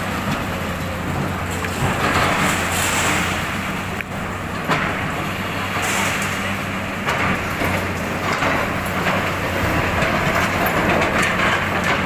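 Diesel engines of hydraulic excavators running steadily while an excavator arm breaks through a building's concrete walls, with irregular crunching and clattering of falling debris and a few sharp knocks.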